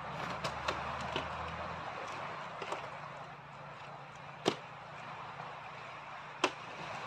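Sharp knocks and clicks of a small folding metal camp table being opened and set down, with a lamp placed on it, two louder knocks past the middle and near the end, over a steady background hiss.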